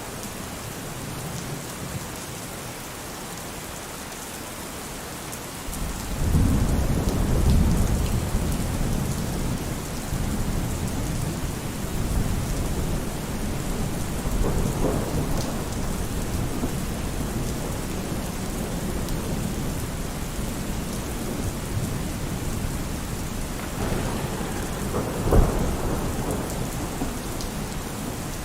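Steady heavy rain falling, with thunder: a loud low rumble breaks in about six seconds in and rolls on, and a sharper crack of thunder comes near the end.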